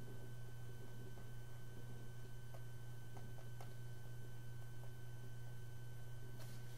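Steady low electrical hum with a few faint thin tones above it, and a few faint ticks about halfway through.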